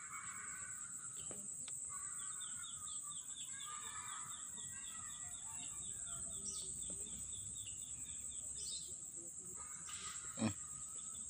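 Outdoor ambience of insects droning steadily at a high pitch, with birds calling and a fast even run of short chirps, about four or five a second, through the middle. A single short knock sounds near the end.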